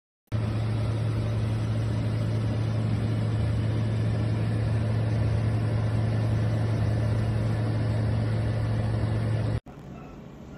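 Countertop air fryer oven running: a steady low hum with fan noise that stops abruptly about nine and a half seconds in, leaving a fainter background noise.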